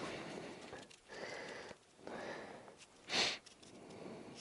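A person breathing audibly in and out several times, then a short, sharp sniff about three seconds in.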